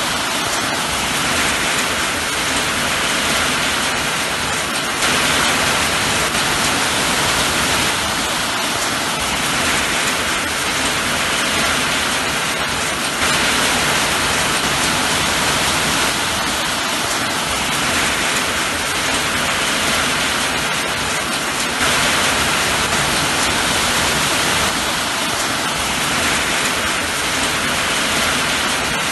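Steady rain, an even hiss, whose level steps up slightly about every eight seconds.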